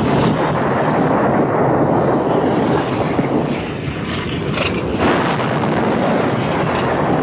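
Mount Etna erupting: a loud, continuous roar from the vent, stepping up at the start, easing a little around four seconds in and swelling again about a second later.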